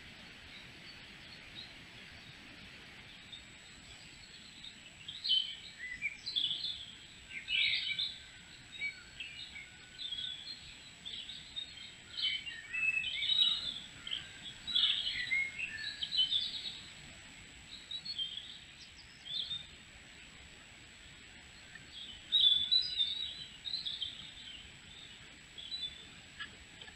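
Wild songbirds singing in short chirping phrases, starting about five seconds in, with a pause and a last burst near the end. The phrases sit over a steady hiss and a faint, steady high tone.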